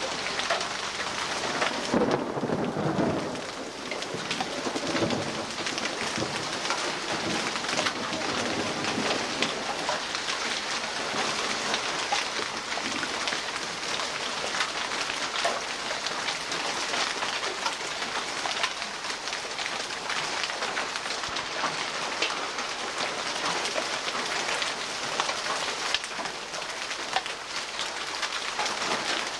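Heavy rain pouring down in a thunderstorm, a dense steady patter full of fine ticks of drops striking surfaces, with a low rumble about two seconds in.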